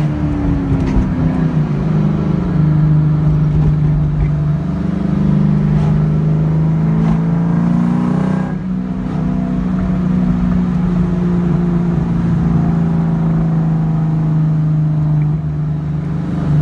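Kenne Bell-supercharged Ford Mustang Mach 1's 4.6-litre V8 running under way through its aftermarket cat-back exhaust, heard from inside the cabin. The engine note drops about a second in, and again with a brief dip in loudness about eight seconds in, then holds steady.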